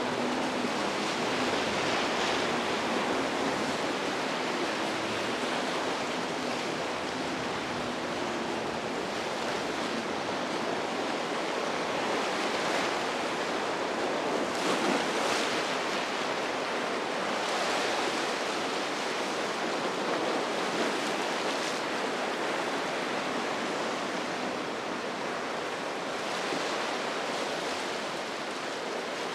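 Ocean waves and surf breaking at an inlet: a steady wash of water noise that swells louder several times as waves come through.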